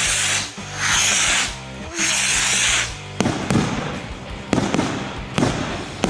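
Firework rockets launching, three hissing rushes in quick succession, followed from about three seconds in by sharp bangs and crackling as they burst overhead.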